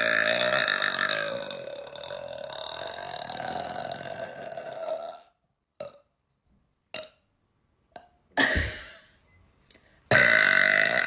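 A woman burping loudly after chugging carbonated soda: one long, drawn-out burp lasting about five seconds, then a few faint short sounds and a brief one about two-thirds through, and another loud burp starting near the end.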